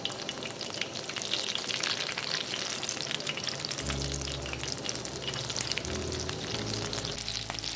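Egg-coated potato and chicken kababs frying in hot oil: a steady, dense sizzle with fine crackling pops.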